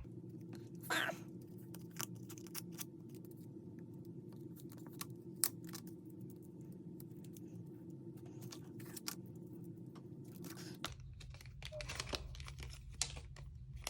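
Plastic packaging rustling and crinkling as merchandise is handled, with scattered light clicks and taps, over a steady low hum.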